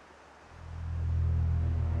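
Low, steady drone from the cartoon's background score, fading in about half a second in after near silence.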